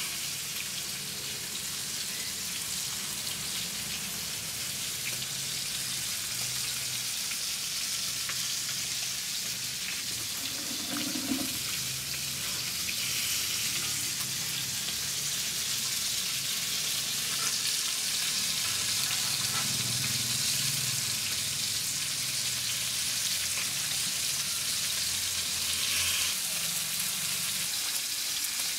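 Oil sizzling and crackling steadily in a pan as food fries.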